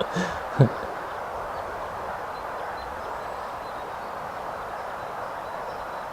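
Steady outdoor background noise, an even hiss with no distinct events. Under a second in, a short voice sound cuts through it.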